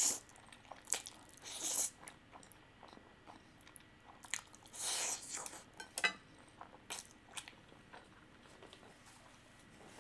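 Close-miked eating sounds of spicy instant fire noodles: a few short slurps, near the start, about two seconds in and about five seconds in, with wet chewing and small mouth clicks between them.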